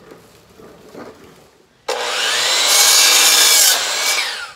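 DeWalt sliding compound miter saw starting suddenly about two seconds in, its motor whining as the blade cuts through a pressure-treated board, loudest mid-cut, then stopping abruptly near the end.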